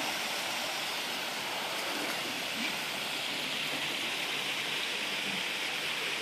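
Steady rushing of water, an even hiss that does not change.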